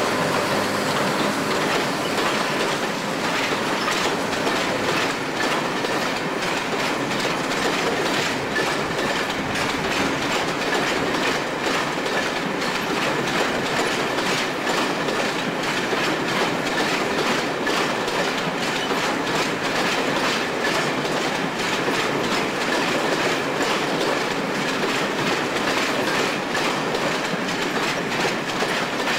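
InterCity passenger coaches rolling past over station pointwork, their wheels clicking steadily over rail joints and crossings, with a faint thin wheel squeal at times.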